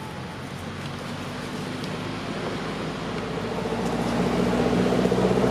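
An engine running with a steady low hum that grows louder through the second half.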